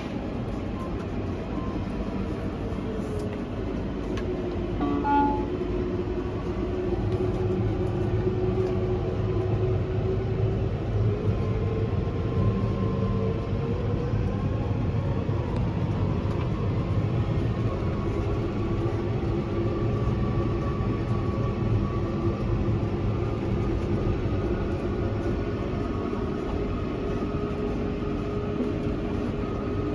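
Fendt tractor heard from inside its cab, running steadily under way with a low drone and a faint whine that drifts slowly in pitch. A short beep-like tone sounds about five seconds in.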